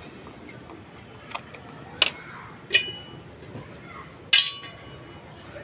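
Kitchen dishes clinking as they are handled: three sharp knocks, about two, three and four and a half seconds in, the later two with a short ring, among a few softer ticks.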